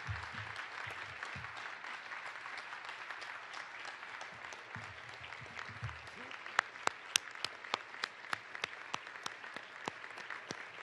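Audience applauding, a dense round of clapping that thins out about two-thirds of the way through into scattered single claps.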